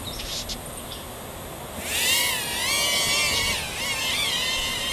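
Tenergy Eggsplorer toy quadcopter's propeller motors spinning up about two seconds in as it lifts off: a high whine whose pitch wavers up and down.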